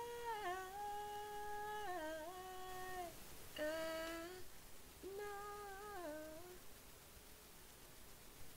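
A woman's voice humming without words, trying out pitches to find a new harmony note. A held note bends down into short phrases of a few stepping notes each, and the humming stops about six and a half seconds in.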